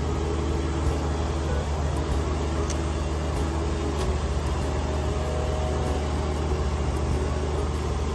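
Kubota BX2380 sub-compact tractor's three-cylinder diesel engine running steadily under load, driving a front-mounted Kubota BX2816 snowblower as it cuts through deep snow and throws it from the chute. There is a steady low hum.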